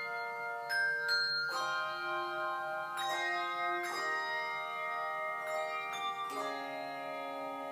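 Handbell choir ringing chords, a new chord struck every second or so, each one ringing on into the next.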